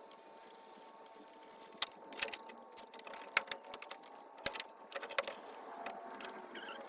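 Irregular light clicks and taps, scattered and uneven, over a faint steady hum.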